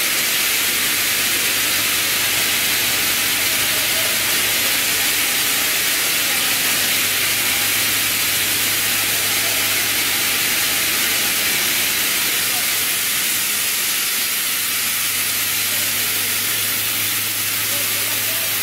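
Running FDY yarn spinning-drawing line giving off a loud, steady hiss of air, with a constant low machine hum underneath.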